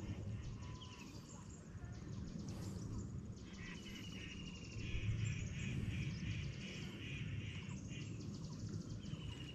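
Outdoor lakeshore ambience: a few short runs of high, rapid chirping trills from small wild creatures, over a steady low rumble.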